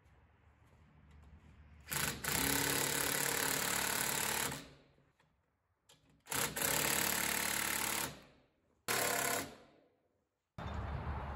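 Ridgid 18V cordless impact driver hammering U-bolt nuts tight in three runs: two of about two seconds each, then a short final burst. A low steady rumble starts just before the end.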